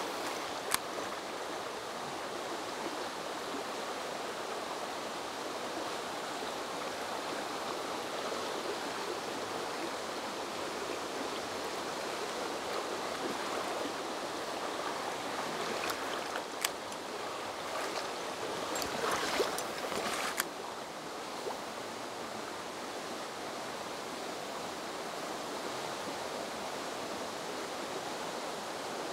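A shallow, stony mountain stream flowing with a steady rush of water. A few short, sharp clicks can be heard about a second in and again about halfway through.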